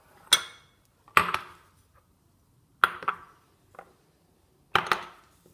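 Small glass bowls being picked up and set down on a stone countertop: about five sharp clinks and knocks, each ringing briefly, roughly a second apart.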